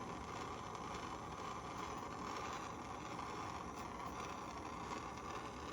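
A gas torch flame hissing steadily while it heats the parts of an LP piezo pilot generator assembly.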